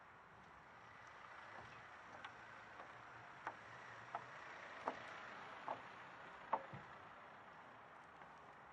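Faint steady outdoor hiss with a run of about five light footsteps in the middle, a little under a second apart.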